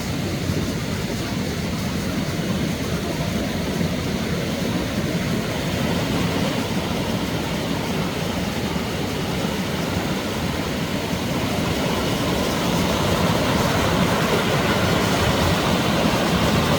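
Mountain stream water rushing over rocks: a steady, full noise that grows a little louder about twelve seconds in.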